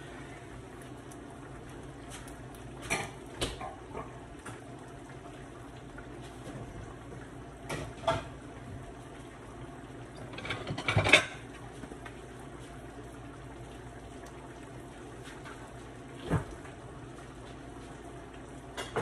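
Steady low hiss of a pan of rice with sausage simmering on a gas stove, with scattered clinks and clatters of kitchenware. The loudest clatter comes about eleven seconds in.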